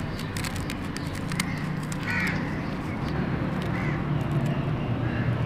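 A crow cawing, clearly a little after two seconds in and again more faintly near four seconds, over a low steady background hum.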